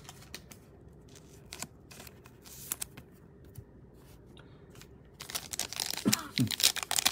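Scattered light taps and clicks of trading cards being set down, then from about five seconds in a dense crinkling and tearing as a Panini Illusions foil card pack is ripped open by hand.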